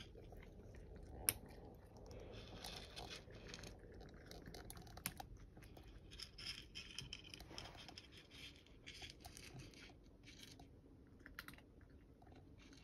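A cat chewing dry kibble: faint, irregular crunching with small clicks, and a couple of sharper clicks about a second and about five seconds in.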